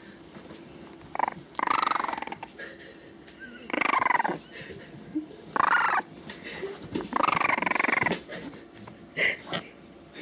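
Three-week-old French Bulldog puppy crying: four loud, high whining cries, the longest over a second, with a few short squeaks between them.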